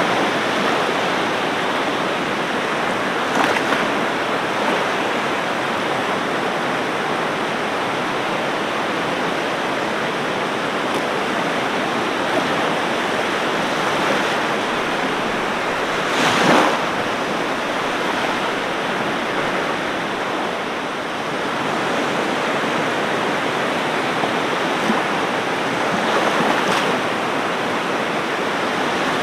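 Ocean surf: a steady wash of breaking waves, with a few louder wave breaks, the loudest about halfway through.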